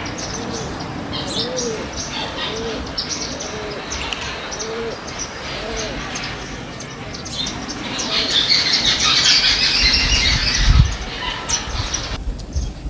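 Backyard birds calling: a series of short low calls, roughly one a second, through the first half, then a dense spell of high chirping and twittering from several birds, with a low thump near the end.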